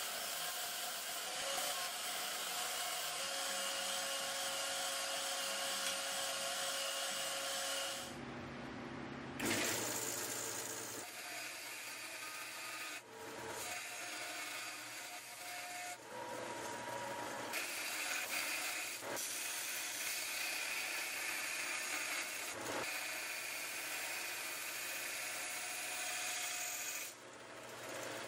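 Bandsaw running and cutting through the steel of a forged W2 knife blank to trim its profile, a steady saw noise with the blade rasping through the metal. The sound changes abruptly several times.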